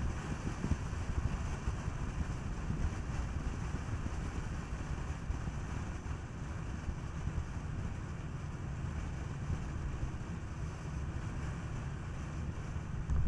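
Steady wind and tyre noise of a Skoda Kodiaq driving along a road, with wind buffeting the microphone.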